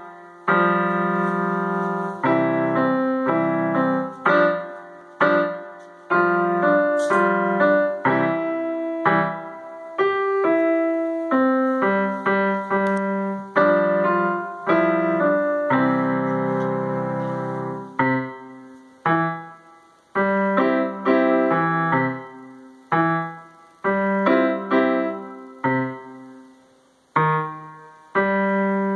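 Digital piano set to a sampled concert grand sound, played by a child: a simple piece of chords under a melody, in short phrases that each die away before the next starts.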